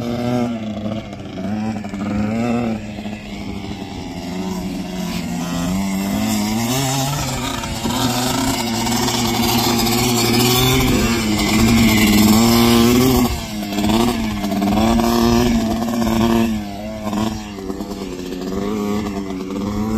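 Small dirt bike and ATV engines running and revving as they ride around, their pitch rising and falling again and again, loudest around the middle.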